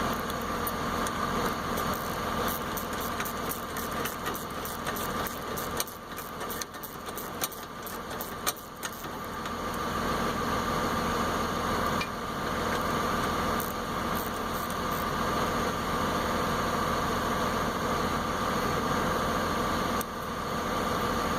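Steady mechanical hum of running machinery in a repair shop, with a run of light metal clicks and taps a few seconds in as the caliper bracket bolts are handled and started by hand.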